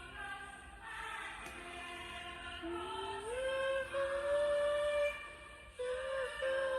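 West End musical chorus singing together, holding long notes; the melody climbs to a higher note about three seconds in and holds it, then takes up another long note near the end.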